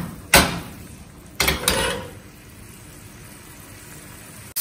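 A frying pan knocks twice against the gas stove's grate as it is shifted, within the first two seconds. Under it, paneer fries in oil with a faint steady sizzle.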